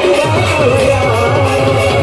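Ayyappa devotional bhajan: a man's voice sings a melody into a microphone over a quick, steady drum beat of about four strokes a second.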